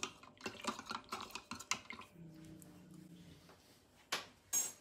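Utensil stirring a laundry detergent and water mix in a container, clicking and tapping irregularly against its sides, with two louder knocks near the end.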